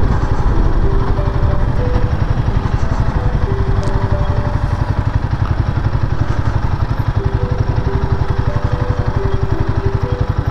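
Royal Enfield Himalayan 450's single-cylinder engine running steadily under way, its firing pulses loud under a steady rush of wind and road noise.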